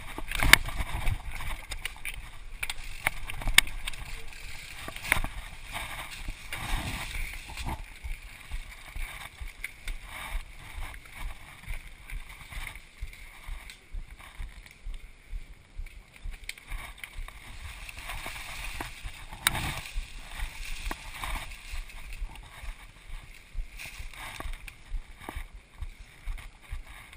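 Muffled rubbing, rustling and irregular knocks from a chest-mounted GoPro HD Hero in its housing as the rider shifts about with his bike, with a couple of sharper knocks in the first few seconds.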